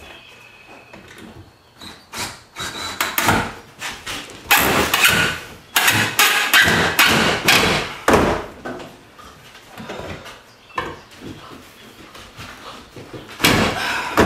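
Cordless drill driving screws into the joint of a 2x4 wooden frame, in several runs of loud, rough noise with sharp knocks between them. A clunk near the end.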